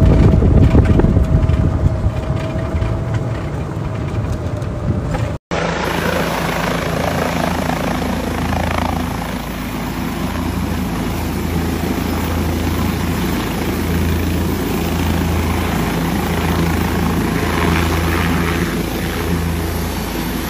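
A helicopter hovering low and setting down, its rotor and engine giving a steady, heavy low drone. Before that, about five seconds of wind and rumble from a moving open buggy end in an abrupt cut.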